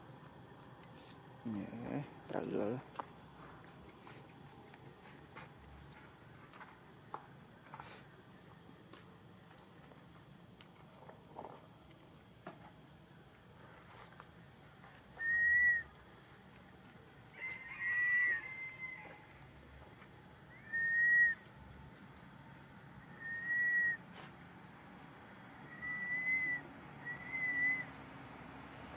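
A long-tailed macaque giving six short, clear whistle-like coo calls, spaced two to three seconds apart, starting about halfway through, over a steady high-pitched insect drone.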